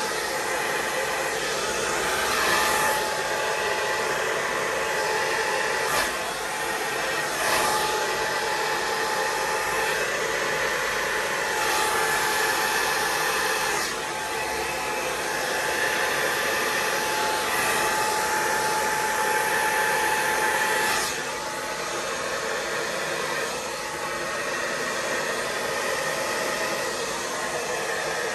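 Handheld hot-air blower running steadily over wet poured acrylic paint. It makes a constant blowing rush with a faint high whine that swells and eases as the blower is moved, spreading the paint across the canvas.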